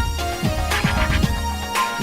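Background music with a steady beat: electronic-style track with a deep bass and regular drum hits under sustained notes.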